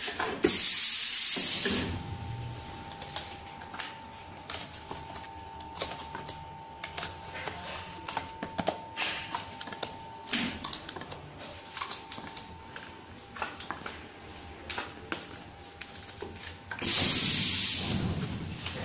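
Pneumatic blister sealing machine: its air cylinders hiss loudly as the heated press plate comes down, about half a second in, and again near the end as it lifts. In between a faint steady hum holds while the plate is pressed. Light clicks and clatter come from trays and steel scourers being handled.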